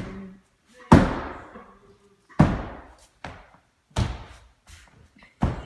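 Heavy foot stomps in shoes on an old hardwood plank floor: four loud stomps about a second and a half apart with a lighter one between, each ringing on briefly in the room.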